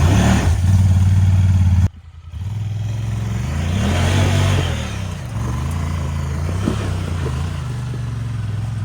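Vehicle engine running. It cuts out abruptly about two seconds in, then comes back with its pitch rising and falling a few times as it speeds up and slows down.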